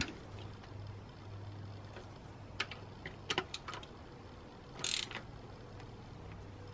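Hand ratchet clicking in a few short, sparse runs as it turns an alternator mounting bolt, with a brief scrape about five seconds in.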